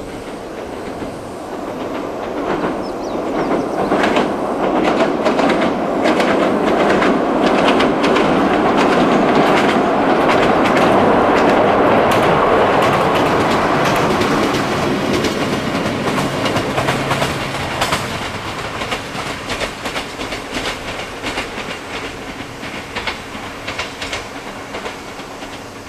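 Toyama Chihō Railway electric train running past, its wheels clicking over the rail joints. The rumble builds to a peak about halfway through, then fades as the train goes away.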